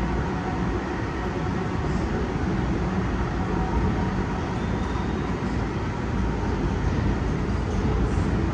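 Long Island Rail Road electric multiple-unit commuter train running with a steady rumble.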